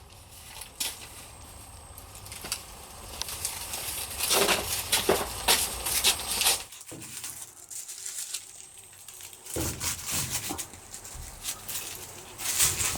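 Irregular rustling, crinkling and tearing, as of dry plant material being handled, heaviest in the middle and again near the end.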